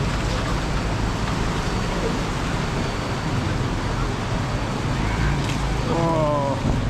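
Steady rumble of vehicle engines and rushing water as traffic wades through a knee-deep flooded street, with a brief voice calling out near the end.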